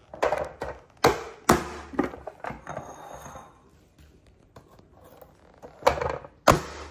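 Onion being chopped in a small hand-operated food chopper: a run of sharp knocks in the first three seconds, a pause, then two more knocks near the end.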